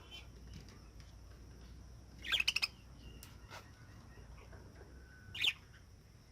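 Pet parrots calling: a quick run of four or five sharp squawks about two seconds in, then a single loud call near the end, over a faint steady background.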